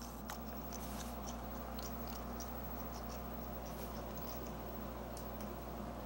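African grey parrots working at mango pieces: faint, scattered small clicks and scratches of beaks and claws on white PVC perches and plastic food cups, over a steady low hum.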